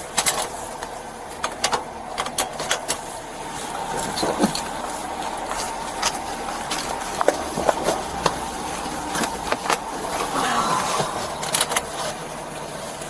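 Scattered sharp clicks and knocks over steady vehicle noise.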